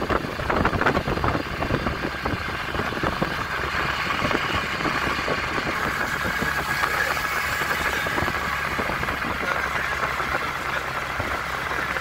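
Steady engine and road noise of a moving vehicle, with some rough, gusty noise in the first couple of seconds.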